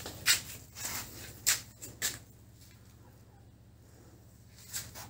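Nylon fishing net and cord swishing as they are pulled through the hands while being measured off. There are four quick strokes about half a second apart, then two more near the end, over a steady low hum.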